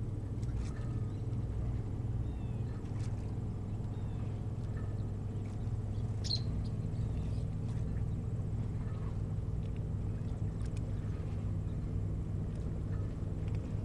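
Steady low engine drone, its pitch shifting slightly about halfway through, with faint bird chirps over it and one short high bird call about six seconds in.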